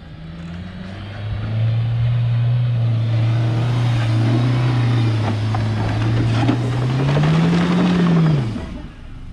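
Mahindra Thar's engine pulling steadily under load as the 4x4 climbs a steep dirt slope, a loud even drone. Near the end it revs up in pitch briefly, then falls away.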